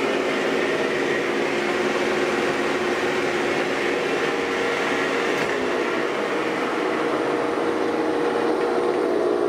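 Old gear-head metal lathe running with its chuck spinning: a steady machine drone of headstock gears and motor, with a cluster of steady low hums and a fainter high whine above them.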